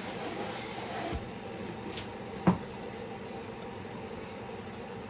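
A steady low hum, with a single sharp knock about two and a half seconds in and a couple of lighter clicks before it.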